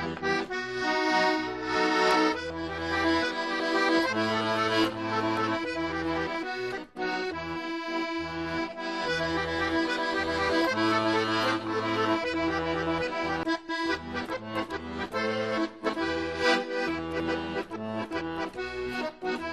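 Accordion music: an instrumental tune over a bass line that repeats in steady blocks.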